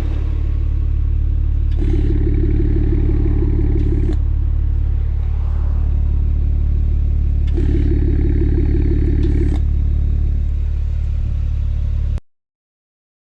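BMW N54 twin-turbo straight-six idling steadily through a home-made one-off exhaust with a valved silencer. Twice, for about two seconds each, a deeper drone comes in over the idle, and the sound cuts off suddenly near the end.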